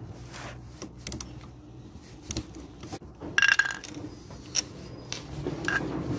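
Small clicks and metallic clinks of a Phillips screwdriver working on a bike trailer's metal frame while a reflector is unscrewed and taken off. The loudest is one ringing clink about three and a half seconds in.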